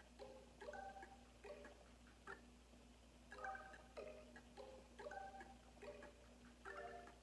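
Quiet, slow relaxation music: a gentle melody of soft struck notes, one or two a second, with a phrase that repeats. A faint steady hum runs underneath.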